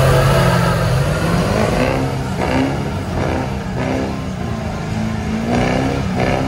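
Diesel mega truck engines revving hard. The engine note climbs in the first second or so, then surges up and down several times.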